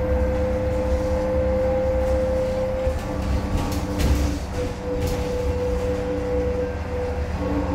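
Interior of a Zhong Tong LCK6126EVG city bus driving: low road rumble under a steady hum of several tones that shift in pitch a few times as the bus changes speed.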